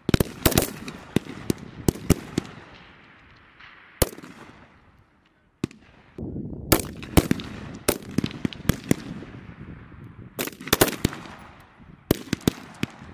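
Rifle fire from M4 carbines on an outdoor firing line: many single shots from several shooters, irregular and often overlapping, each with a short echoing tail. There is a brief silent break about five seconds in, then the firing resumes.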